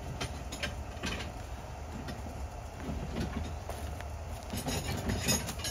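Scattered knocks and clatter of equipment being handled in a cargo trailer, over a steady low rumble, with a quick run of sharper clicks and rattles near the end.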